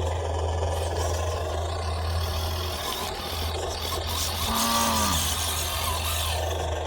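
Simulated diesel engine sound from an RC engine sound module, played through the YK 4107 RC crawler's small speaker as a steady low drone.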